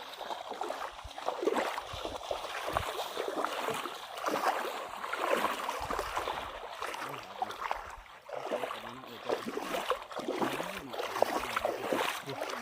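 Water splashing and sloshing in shallow pond water, in many small irregular splashes.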